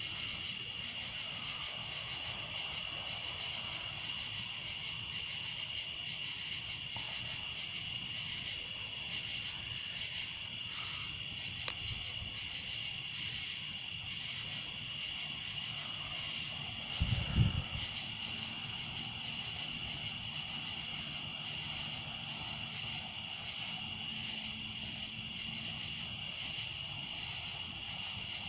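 Crickets in a night chorus: a steady high trill with a chirp pulsing over it about twice a second. A single low thump about two-thirds of the way through.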